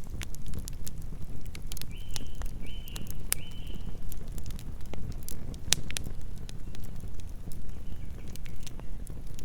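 Campfire burning: a steady low rumble of flames with frequent sharp crackles and pops from the burning wood. About two seconds in, three short high chirps come in quick succession.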